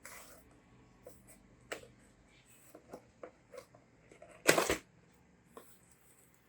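Packaging being handled as a keyboard box is opened: scattered light clicks and rustles, with one loud rustle of packaging about four and a half seconds in.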